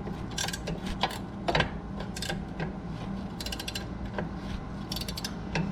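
Hand ratchet wrench clicking in short, repeated bursts as a rusted nut is worked off its stud.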